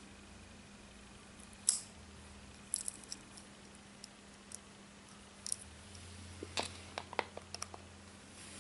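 Small two-blade folding penknife with a ring key: one sharp click about two seconds in as a blade snaps shut, then scattered light metallic clicks and a quick run of small clicks near the end as the knife and its rings are handled.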